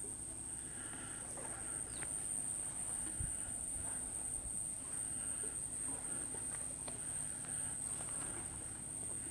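Insects calling in a steady, high-pitched, unbroken drone, with a few faint clicks over it.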